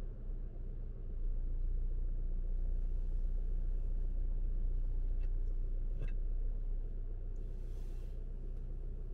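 Steady low rumble of a car being driven, the engine and tyre noise growing louder about a second in. Two faint clicks come around the middle, and a brief hiss rises and fades near the end.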